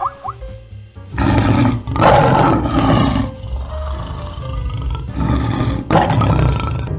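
A large animal roaring, one long roar starting about a second in and another near the end, over background music.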